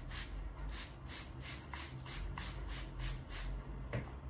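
Dry sphagnum moss being picked up and handled, a soft rustling and rubbing, with a sharp click about four seconds in.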